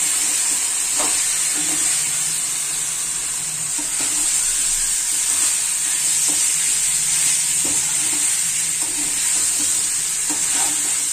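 Raw chicken pieces sizzling steadily in hot oil in a metal kadhai as they start to fry. A spatula scrapes and knocks against the pan now and then as the chicken is stirred.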